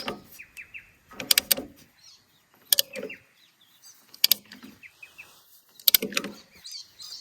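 Sharp metallic clicks and knocks about every second and a half, some of them doubled, with faint short chirps between them.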